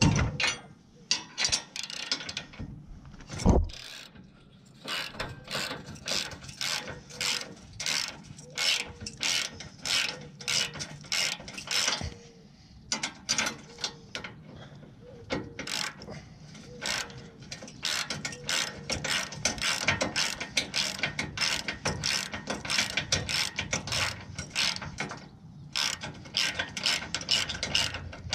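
Hand socket ratchet clicking in repeated short back-and-forth strokes as a bolt is backed out, with brief pauses about 12 and 25 seconds in.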